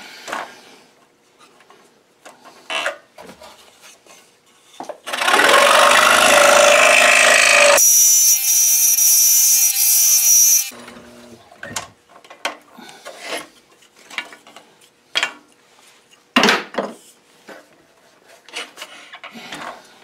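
Scroll saw cutting an interior window cut through quarter-inch wood stock. The sawing starts about five seconds in, changes to a steadier hum partway through and stops suddenly about eleven seconds in. Before and after it come light clicks and taps as the blade is threaded through the drilled hole and the workpiece is handled.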